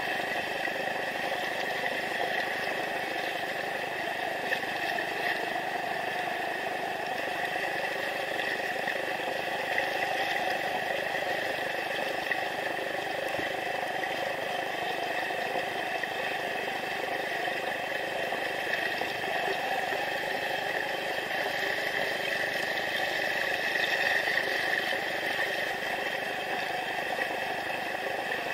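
Shallow rocky river rapid rushing steadily, the water running white over stones.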